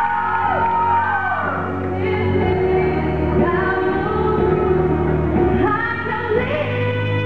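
Two girls singing a duet into handheld microphones over musical accompaniment, their held notes wavering with vibrato.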